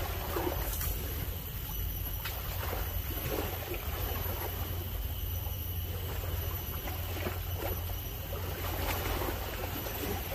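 Seaside outdoor ambience: a steady low rumble with faint water sounds and a few soft clicks.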